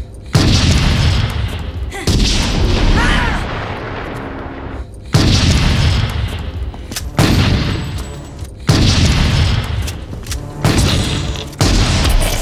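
Shotgun fired repeatedly, about seven blasts a second or two apart, each sudden and loud with a long echoing decay.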